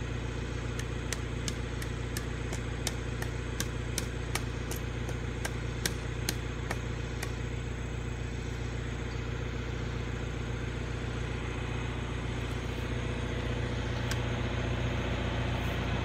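John Deere 410 backhoe's engine idling steadily, left running to exercise it and charge its battery after it had sat unused. A run of sharp clicks, two or three a second, sounds over it through roughly the first half.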